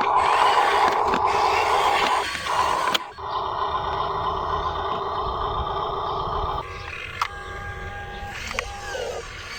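Small electric motors and gearboxes of radio-controlled construction vehicles whirring steadily, with an abrupt break about three seconds in and a change to a quieter, whining run near seven seconds.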